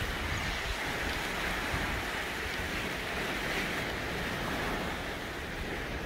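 Small waves washing onto a sandy beach: a steady hiss of surf, with a low rumble of wind on the microphone.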